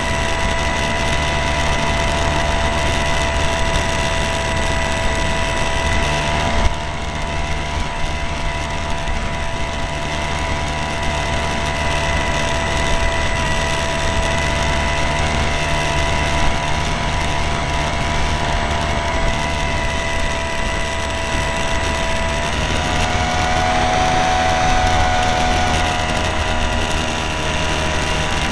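Motor and propeller of a small plane carrying the camera, running at a steady high whine over wind rushing past the microphone; the pitch steps up a little about three-quarters of the way through as the throttle is opened.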